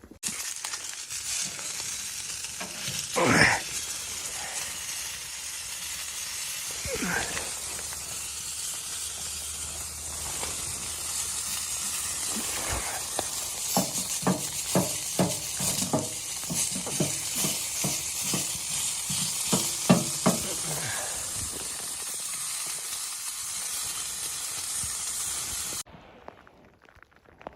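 Food sizzling in a frying pan, a steady high hiss. In the middle comes a run of quick stirring or scraping strokes. The sizzle cuts off abruptly near the end.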